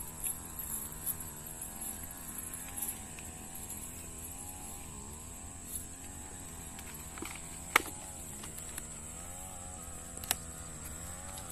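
A small engine runs steadily in the background, its pitch wavering up and down, under a constant high hiss. Two sharp clicks come late, about two and a half seconds apart.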